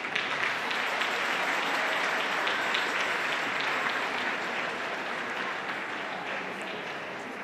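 Large audience applauding, the clapping swelling just after the start and slowly fading toward the end.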